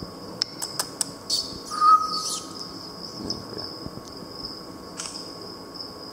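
A steady, high, insect-like trill runs throughout. Over it come a few short clicks and chirps, the loudest a brief chirp about two seconds in.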